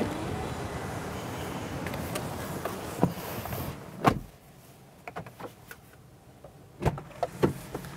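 Mercedes-Benz GLC 300 driver's door shutting with a solid thunk about four seconds in, after which the outdoor background turns muffled and much quieter. A few small clicks follow, then another sharp door thunk near the end.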